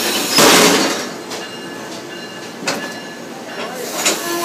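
Amtrak Keystone passenger cars rolling past on the platform track: a loud rush of wheel and air noise about half a second in, then a steadier rumble broken by two sharp clanks.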